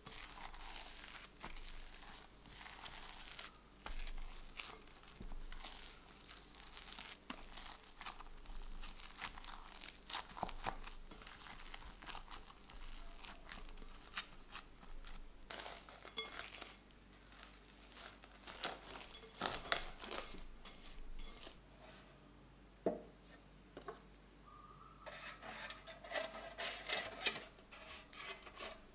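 Sticky, wet bread dough being folded and pressed by a gloved hand in a glass bowl, making irregular short tearing and crackling noises as the dough stretches and comes together.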